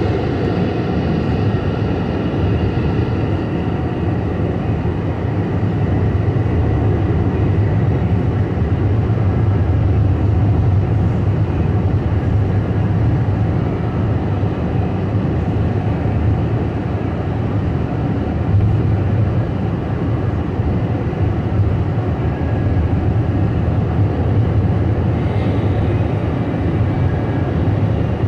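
Steady road and engine noise of a moving car heard from inside the cabin: a constant low rumble of tyres on asphalt.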